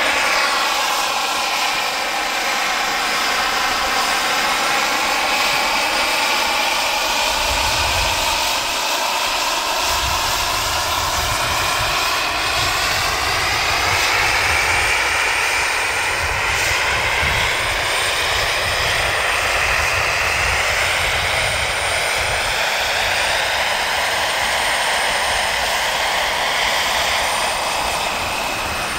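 Turbine engine of a radio-controlled Kaman K-MAX scale model helicopter whining steadily while it hovers with a sling load. The whine's pitch slides down over the first few seconds and climbs again past the middle, and a low rumble joins about eight seconds in.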